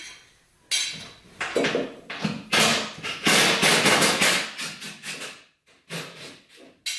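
Power wrench run in a series of short, separate bursts, the longest about a second, zipping out the transmission crossmember bolts.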